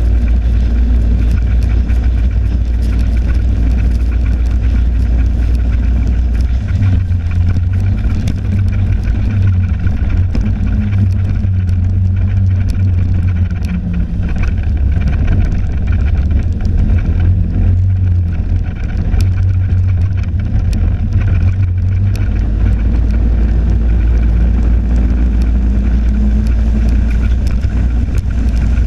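Snowmobile engine running steadily while the sled rides along a packed snow trail. Its note steps up about a quarter of the way in and drops back lower about three-quarters of the way through.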